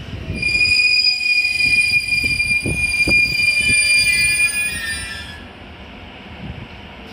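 JR Kyushu 813 series electric train squealing as it comes to a stop at the platform: a steady high-pitched ring with overtones that fades out about five seconds in. There are a couple of low knocks partway through.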